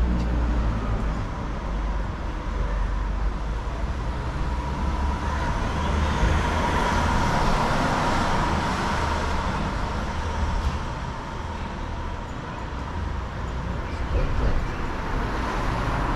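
Street traffic noise: a vehicle passes close, swelling up and fading away in the middle, over a constant low rumble.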